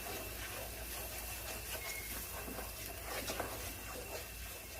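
A utensil stirring a roux-thickened stock sauce in a pan: scattered light scrapes and taps over a steady low hum.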